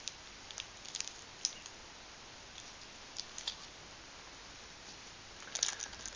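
Small plastic sweet wrapper crinkling in short, scattered crackles as it is handled and unwrapped by hand, with a denser burst of crinkling near the end.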